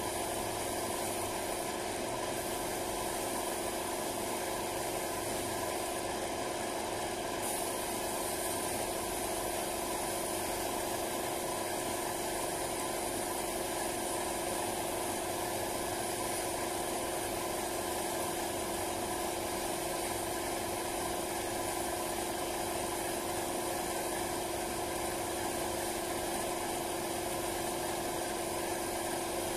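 Air compressor running with a steady hum, feeding a gravity-feed paint spray gun that hisses as it sprays.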